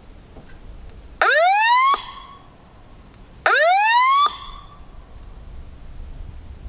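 Electronic predator caller (FoxPro Fusion) playing a locator call through its speaker: two identical rising whoops about two seconds apart, each sliding up in pitch, holding briefly and cutting off abruptly. It is played to get coyotes to howl back.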